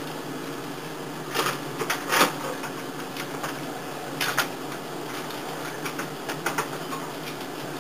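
VCR tape transport running with a steady whir, with a series of mechanical clicks and clunks as it loads the tape and starts to play: a cluster of clicks about two seconds in, one more around four seconds, and a few lighter ones near the end.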